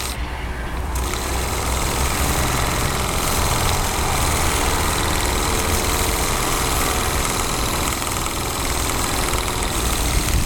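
Mamod twin-cylinder, double-acting oscillating marine steam engine running steadily under steam from a small boiler, with a continuous hiss of exhaust steam. The high part of the hiss drops out briefly in the first second.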